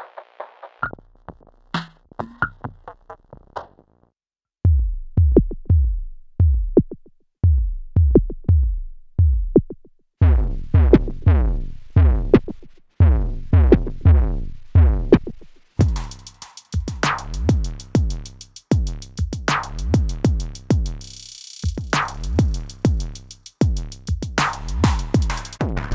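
Drum machine pattern played through a Generation Loss MKII tape-emulation pedal. It opens with sparse hits and chirping digital tones, then a booming kick pattern comes in. The beat turns heavier and brighter with dense ticking hi-hats as the pedal's saturation is added.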